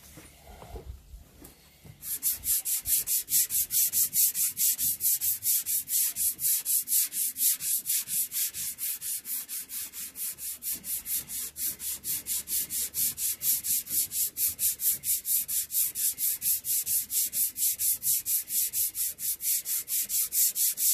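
A strip of abrasive cloth is pulled back and forth shoeshine-style across a carved wooden half-hull, sanding its waterlines. It starts about two seconds in and keeps a fast, even rasping rhythm of about four strokes a second.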